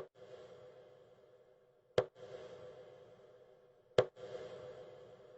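Sharp clicks every two seconds, three in all, each trailing off into a hiss that fades before the next click.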